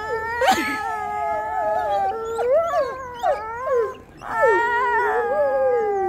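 Several wolves howling together in chorus. Their long overlapping howls are at different pitches that slide and break, with a short lull about four seconds in before a fresh howl starts.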